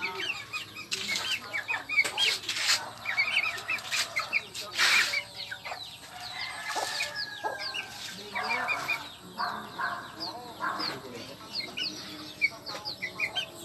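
Backyard chickens clucking, with many short, high chirps repeating throughout and a few brief rustling bursts in between.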